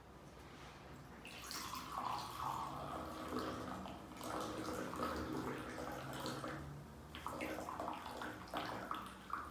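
Cola being poured into a drinking glass in a steady stream, which breaks into trickles and drips near the end.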